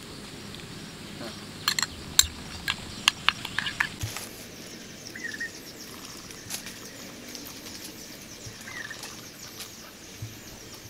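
A metal spoon clinks sharply against a small ceramic bowl about half a dozen times. After that, outdoor insects chirr steadily, with a couple of short bird chirps.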